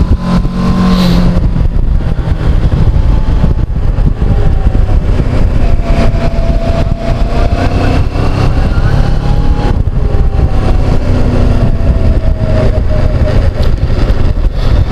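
Motorcycle engine running on the move, its pitch rising and falling gently through the bends, under a heavy, steady rush of wind on a helmet-mounted microphone.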